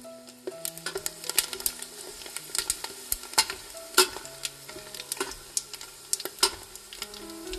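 Dried sea mustard (miyeok) deep-frying in hot oil in a stainless steel pot, sizzling with a steady hiss and many irregular sharp crackles and pops. Wooden chopsticks stir and turn the seaweed in the oil.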